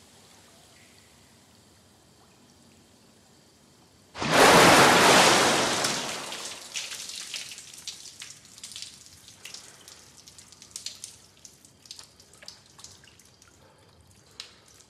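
A single big splash in a swimming pool about four seconds in, followed by water pattering and dripping back onto the water and the tiled poolside, thinning out.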